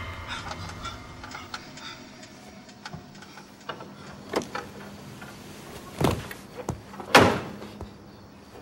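A few scattered knocks and clicks, then two louder thuds about six and seven seconds in, the second the louder; the fading end of a music cue is heard at the very start.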